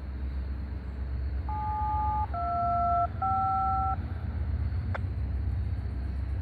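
Three touch-tone (DTMF) dual-tone beeps, each under a second long, sound in quick succession about a second and a half in, the kind a railroad radio carries when a crew dials up over the channel. Under them a freight train rumbles steadily across a steel trestle, and a single sharp click comes about five seconds in.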